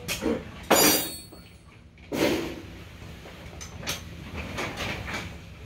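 Metal hand tools at work on the front suspension of a Suzuki ATV. A sharp metallic clank with a ringing squeal comes about a second in, then a heavier clunk about two seconds in, followed by lighter clicks and taps of a wrench on the parts.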